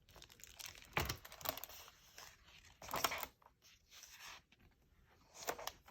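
Paper pages of a picture book being handled and turned: a series of soft rustles and light clicks, with the clearest ones about one, three and five and a half seconds in.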